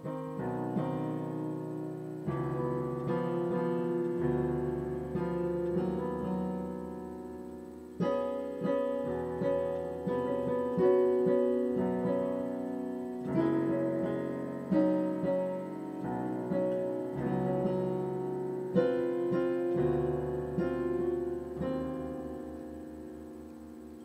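Solo piano being played: notes and chords struck in phrases and left to ring and fade, with deep bass notes held underneath. The playing starts suddenly out of silence.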